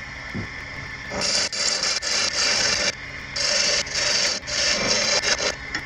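Hand-held turning tool cutting into a small wooden piece spinning on a wood lathe: a hissing scrape that starts about a second in and comes in bursts with short pauses, over the running lathe.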